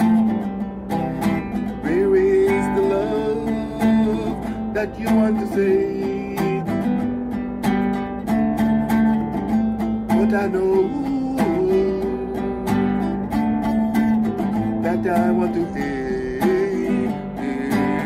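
Background music led by strummed and picked acoustic guitar.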